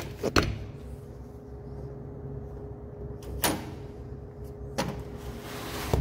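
A door swung against a floor dome door stop: two quick knocks near the start, then a few louder swishes and knocks, over a steady faint hum.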